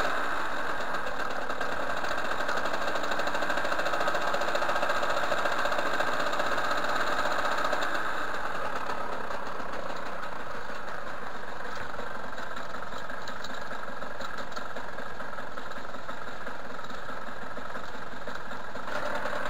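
Derbi moped's 50cc two-stroke engine idling steadily while it warms up, a little louder about four to seven seconds in.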